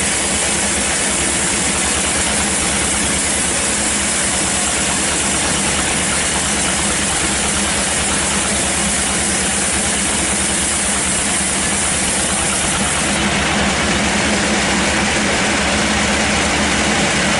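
Sawmill machinery running steadily and loudly, an engine-driven band saw with a constant low hum under a dense hiss. The high hiss eases about 13 seconds in while the machine keeps running.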